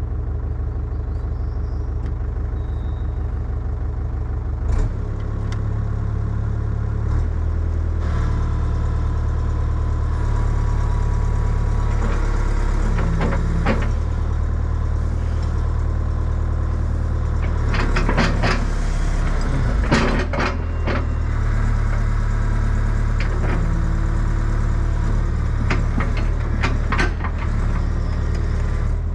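Excavator diesel engine running under hydraulic load, stepping up in level about five seconds in and again a few seconds later, as the machine is worked to get a thrown track back onto its rollers. Several sharp clanks and knocks come through in the middle and near the end.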